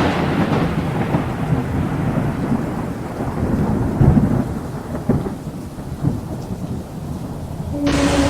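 Thunder rumbling over steady rain, dying away from a crack just before, with further swells of rumble partway through. Near the end the sound changes abruptly to a steady hum with two held tones.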